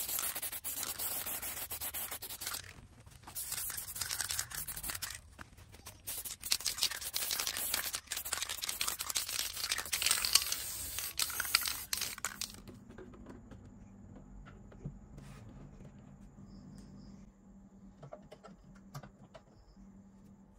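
Aerosol spray-paint can hissing in three long bursts as it coats a plastic cassette-player casing, stopping about twelve seconds in. After that only a low steady hum with a few faint clicks.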